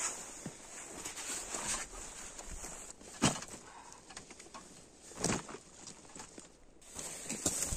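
Backpack being taken off, set down and handled: rustling of fabric and straps, with two sharp knocks about three and five seconds in.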